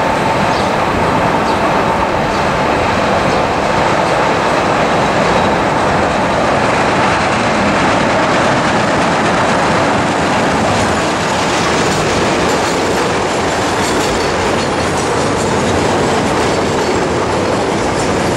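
Chicago 'L' Brown Line train of stainless-steel cars running on the elevated track and passing close by as it comes into the station: loud, steady noise of wheels on the rails.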